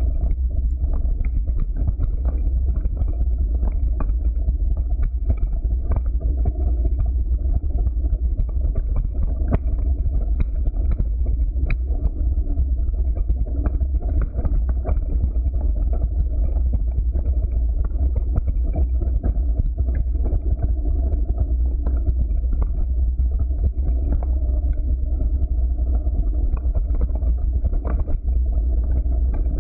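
Mountain bike riding fast downhill over a rocky dirt trail: a steady low rumble of wind on the microphone and knobby tyres rolling over stones, with frequent short clicks and rattles from the bike jolting over the rocks.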